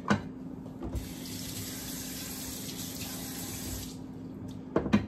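Kitchen faucet running into a steel sink for about three seconds, the water rinsing the sharpening stone, then shut off. A knock just at the start and sharp knocks near the end as the stone is handled.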